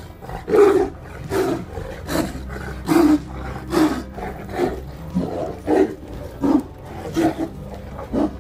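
A tiger and a liger tussling, giving a run of short, loud roars, about one every 0.8 seconds.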